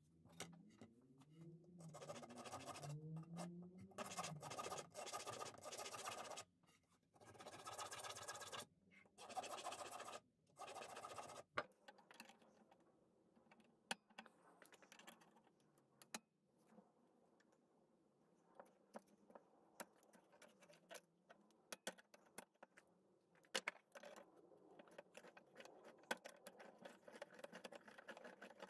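Repeated scratchy scraping strokes of a hand tool across the rusty steel blade of an antique sickle, for about eleven seconds. After that come sparse faint metallic clicks and scrapes as pliers grip and work the sickle's riveted handle joint.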